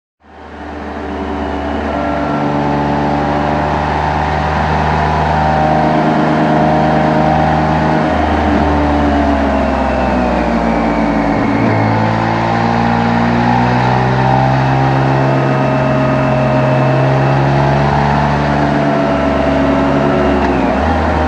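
Motorcycle engine and exhaust running under way, picked up by microphones on the bike, with road and wind noise underneath. The engine note fades in at the start, holds steady, then dips and settles at a lower pitch about eleven seconds in.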